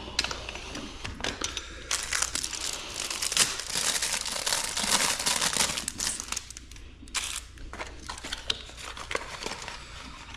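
Crinkly packaging being handled and crumpled, a dense crackling rustle with scattered small clicks. It is busiest in the first half and thins out to lighter crackles later.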